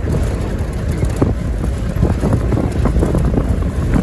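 Wind buffeting the microphone: a loud, uneven low rumble, with a few short knocks.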